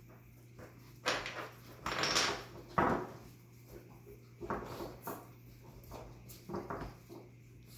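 Chihuahua puppies scuffling and moving about, with irregular rustles and knocks, the sharpest a little under three seconds in, over a faint steady low hum.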